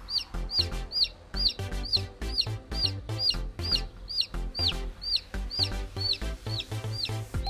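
A newly hatched chick peeping loudly and steadily, about two high peeps a second, over background music with a bass beat.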